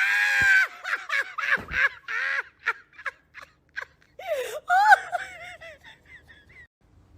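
High-pitched laughter from a person: a loud shriek, then a run of short bursts that fade out. About four seconds in comes a louder rising-and-falling squeal, followed by quick short squeaky bursts.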